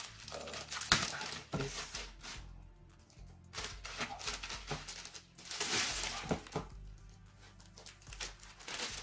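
Thin plastic wrap crinkling and rustling as it is pulled and peeled off a cardboard box, in irregular crackles with a sharp snap about a second in.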